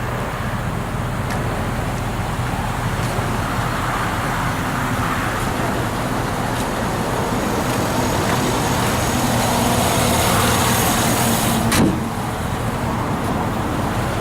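Motor vehicle engine running steadily with road traffic noise. There is a single sharp knock about twelve seconds in.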